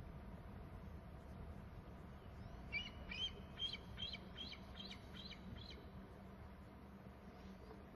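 Eaglet calling: a series of about eight high, sharp chirping calls, two or three a second, beginning about three seconds in, over a faint steady low hum.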